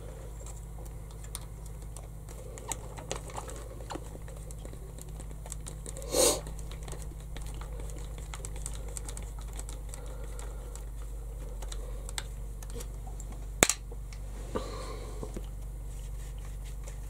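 Light, scattered clicks and taps of a hex driver turning out small screws from an RC buggy's plastic top plate, over a steady low hum. A short louder rustle comes about six seconds in, and a single sharp click comes later.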